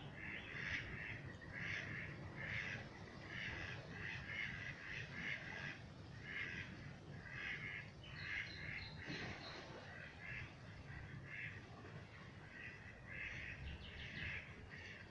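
Birds giving short calls in quick succession, several a second; the calling thins out in the middle and picks up again near the end.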